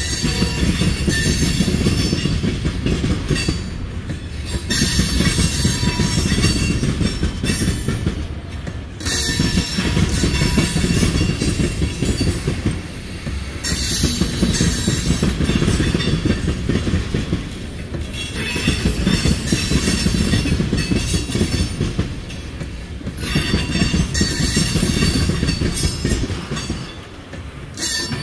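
Freight train tank cars rolling past, steel wheels rumbling and clacking on the rails with high, thin wheel squeal. The noise swells and dips about every four to five seconds.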